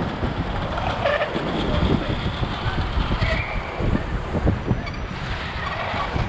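Wind buffeting the microphone of a moving skater, mixed with the rumble of inline skate wheels rolling on asphalt.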